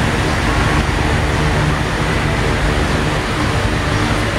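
Underbone motorcycle engine idling steadily during an emission running test.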